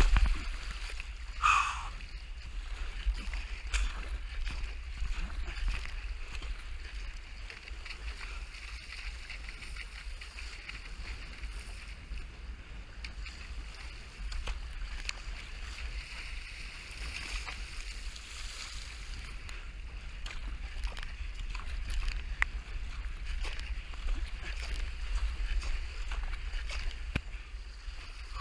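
Wind buffeting an action camera's microphone in a steady low rumble, over the hiss and splash of choppy seawater rushing past a surfski's hull as it is paddled downwind.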